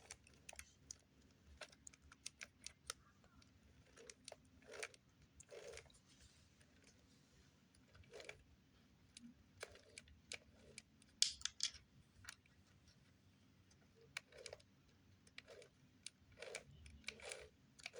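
Faint, irregular clicks and taps of small parts being handled during reassembly of an RC car, with a louder cluster of clicks about eleven seconds in.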